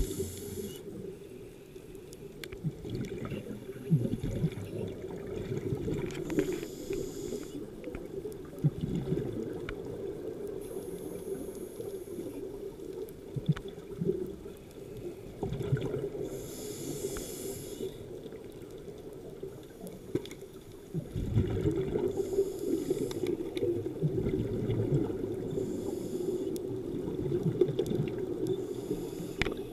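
Scuba regulator breathing underwater: a hissing, bubbling burst of exhaled air every four to five seconds over a steady low underwater rumble.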